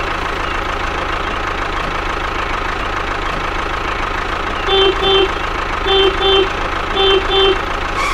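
A tractor-type engine running steadily at idle, with a horn sounding three double honks (beep-beep) in the second half.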